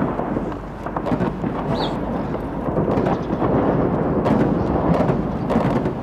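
Battle sound effect: a continuous low rumble of explosions with many sharp cracks of gunfire over it, swelling a little about four seconds in.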